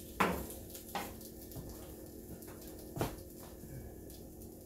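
A cooking utensil knocking sharply against a frying pan three times, with a few lighter taps, as slices of French toast are turned over, over a faint steady hum.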